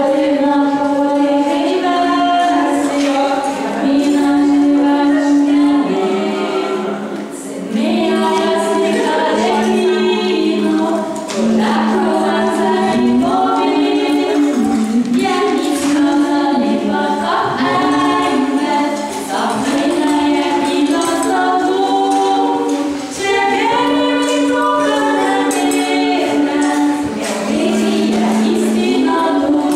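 Three young women singing a cappella in harmony into microphones, with long held notes and no instruments.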